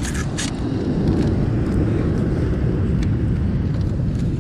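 Steady low rumble of wind buffeting the microphone on an open shore, with a couple of sharp clicks of mussel shells being handled right at the start.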